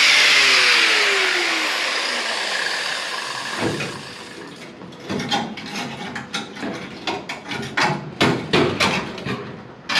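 A power cutting tool winding down with a falling whine and fading out after cutting into the car's sheet-metal body, followed from about four seconds in by a run of sharp metallic clinks and knocks as the cut metal is worked loose.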